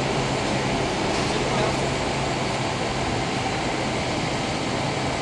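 A steady rushing background noise with a low hum running under it, and faint, indistinct voices.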